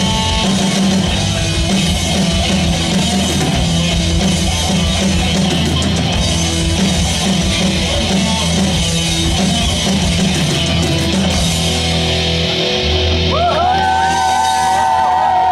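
Rock band playing: electric guitar and drums with a steady low bass line. About two seconds before the end, high held notes swoop in and bend over the top.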